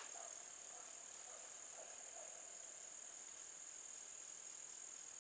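Steady, high-pitched insect chorus, an unbroken shrill drone with no change in rhythm or pitch.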